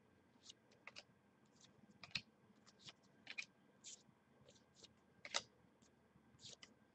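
Faint, irregular clicks and light scrapes of football trading cards being slid and flipped in the hands, one card after another, the loudest click about five seconds in.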